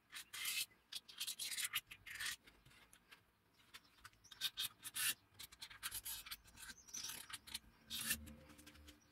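Felt-tip marker scratching across a porous white block in short irregular strokes as it traces around a knife blank.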